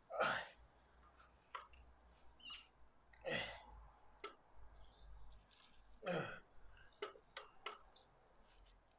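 A man exhaling hard three times, about three seconds apart, in time with the reps of a dumbbell row, with a few faint clicks in between.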